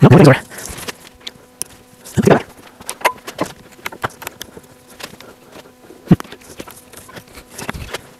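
A steel chisel being worked into a glued joint in an old wooden toerail: scattered knocks, scrapes and cracks of tool on wood, the loudest right at the start and about two seconds in, with a sharp click about six seconds in.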